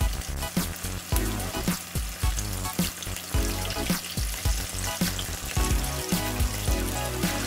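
Coated chicken pieces sizzling as they shallow-fry in hot oil in a stainless steel pan, being turned over partway through. Background music with a steady beat plays under the sizzle.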